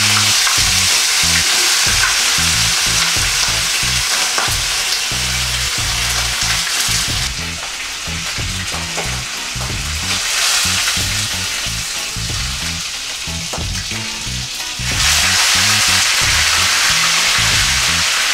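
Barracuda steaks sizzling as they fry in hot oil in a nonstick frying pan, a steady crackling hiss. It drops back for several seconds in the middle and comes up loud again near the end.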